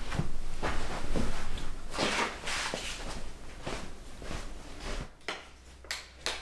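Rustling, shuffling and light knocks of someone moving about and handling things in a small room, loudest about two seconds in, then a few sharp clicks near the end.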